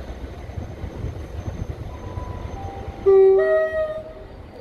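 A train horn sounds once about three seconds in, a lower note followed by a higher one, over the low rumble of an LNER Azuma (Hitachi multiple unit) pulling into the platform.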